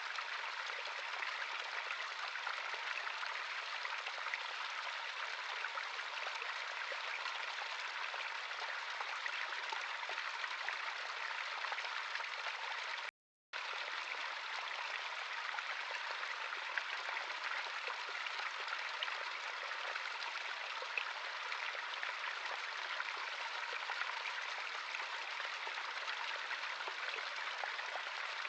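Running water of a stream flowing steadily, an even rushing sound. About halfway through it cuts to complete silence for about half a second, then resumes unchanged.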